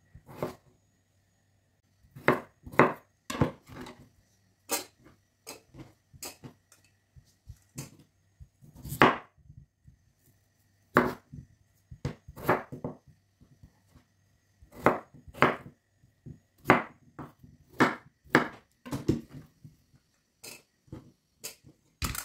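Knife cutting raw potatoes into large chunks on a bamboo cutting board: irregular sharp knocks of the blade striking the board, single or in quick groups with short pauses between. A louder knock comes near the end.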